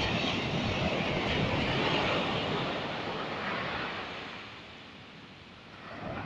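Sea surf: a wave breaks and washes in, then the rush ebbs away about five seconds in before the next swell builds again.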